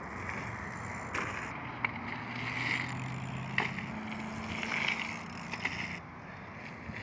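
BMX bikes riding over a dirt jump: tyre noise on the dirt swells twice as riders pass, with a few sharp clicks and knocks from the bikes.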